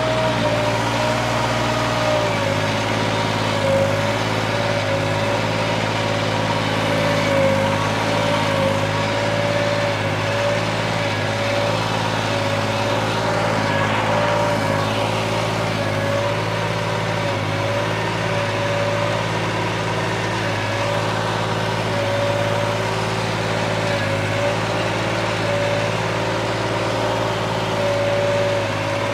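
New Holland 3630 Special Edition tractor's diesel engine, fitted with a modified fuel pump and turbo, running steadily under heavy load as it pulls a cultivator through hard ground. It keeps an even engine note the whole time.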